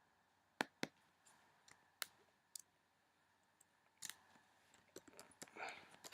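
Faint, scattered clicks at an irregular pace from using a computer's mouse and keyboard, bunched together near the end.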